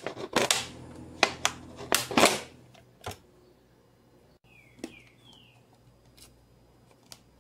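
Utility knife blade stabbing and cutting through a thin PET plastic bottle: a quick run of sharp plastic cracks and crackles over the first three seconds, then only a few faint clicks and two short falling squeaks.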